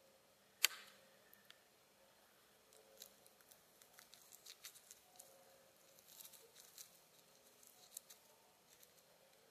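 Faint handling sounds of a Hall flintlock breech-loading rifle being loaded in the prone position: one sharp click about half a second in, then a scatter of small clicks and rustles.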